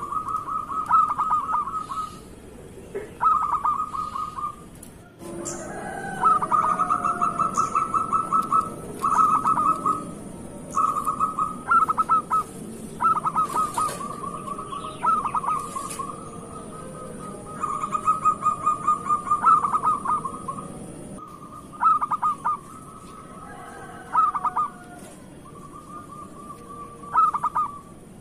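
Zebra dove (local perkutut) cooing: repeated phrases of fast rolling coos, each a second or two long, with short pauses between. Behind them runs a faint steady high hiss.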